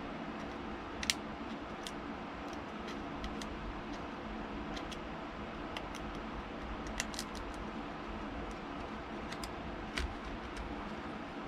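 Scattered light clicks and taps of small repair tools handling a handheld console's parts, a dozen or so at uneven intervals, over a steady background hiss.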